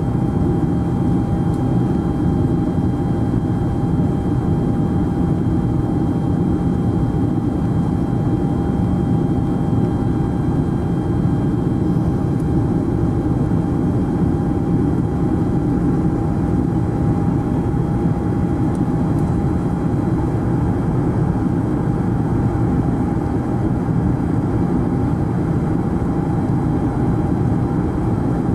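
Boeing 747SP in flight, heard inside the cabin: a steady rumble of engines and airflow with a steady high whine above it.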